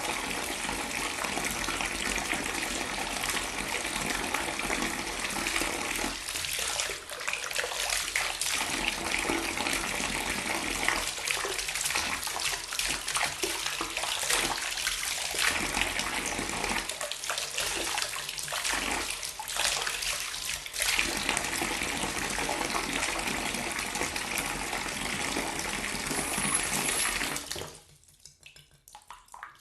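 Water pouring in a steady, splashing stream, which stops sharply near the end and leaves a few faint drips.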